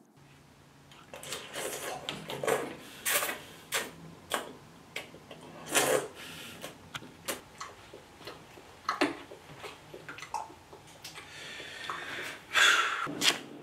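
Spoon knocking in a bowl while cereal is eaten: a run of irregular clicks and crunches over a low steady hum.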